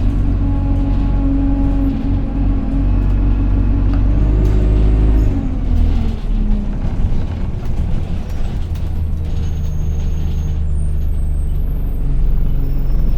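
Single-deck bus engine heard from inside, running under load with a whine (the "loud hoover" sound), then dropping in pitch about five seconds in as the bus slows. Air brakes hiss soon after, and the engine then runs at a steady low note.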